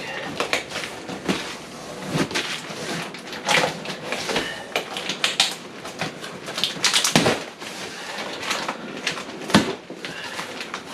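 A cardboard package being opened and unpacked by hand: irregular rustling, crackling and tearing, with scattered sharp knocks as the box and its contents are handled.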